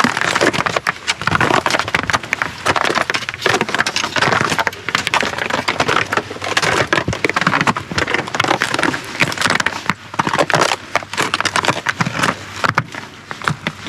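Footsteps in microspikes crunching and scraping on icy, frozen snow, a dense run of crunches.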